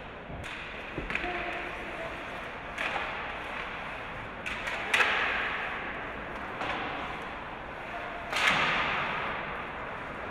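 Hockey play: a series of sharp cracks from sticks and puck, the loudest about five and eight seconds in, some followed by a scraping hiss and a short echo.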